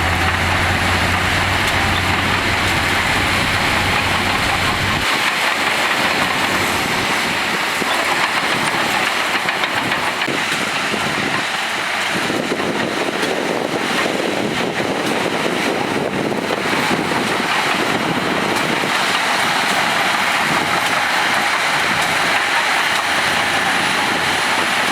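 Heavy earthmoving machinery at work, its diesel engines running steadily. A deep low rumble drops away suddenly about five seconds in, leaving steady engine and machinery noise.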